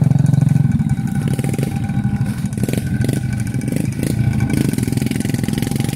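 Engines of several small scooter-type motorcycles running close by, loudest in the first second, with a few light knocks about halfway through.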